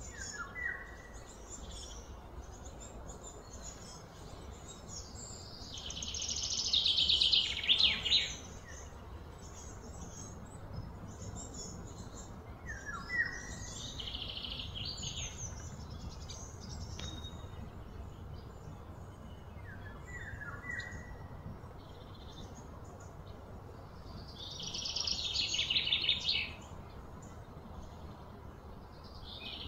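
Birds calling: three loud, rapidly trilling bursts of a few seconds each, about 6, 14 and 25 seconds in, with a few short falling chirps between them over a faint low rumble.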